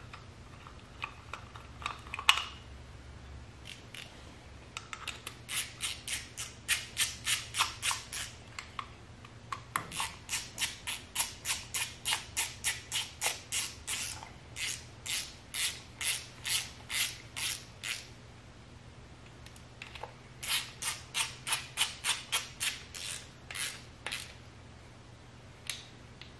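Small ratchet wrench clicking in quick, even runs of about four strokes a second, in several bursts with pauses, as the bolts of the cam position sensor on a 1.8T 20-valve engine are run in. A single sharp clack about two seconds in.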